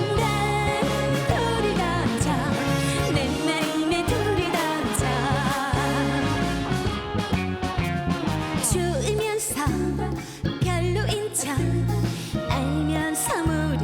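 A trot song performed with a backing band: a steady bass beat under a singing voice.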